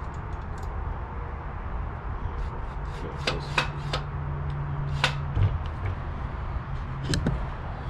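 A few light metallic clicks and taps as bolts and mount hardware are handled by hand on the side of an engine block, over a steady low rumble.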